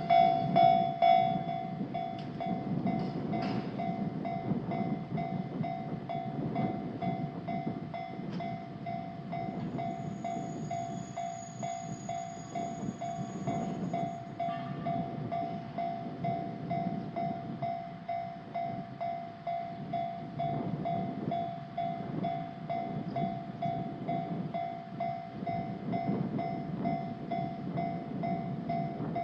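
Japanese railroad crossing warning bell ringing in a steady repeating pattern, louder in the first second, while a train rumbles past.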